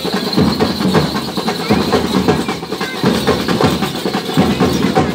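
Procession band's snare and bass drums playing a rapid, continuous drumbeat with heavier accents about once a second.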